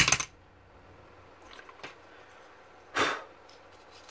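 Two short, breathy puffs of air about three seconds apart, the first starting with a click, with faint scratching of a toothbrush against a dusty laptop CPU fan between them.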